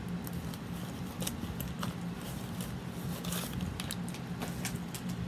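Clear plastic pattern sleeve and stitching fabric being handled, rustling and crinkling with irregular crackles and clicks, over a steady low hum.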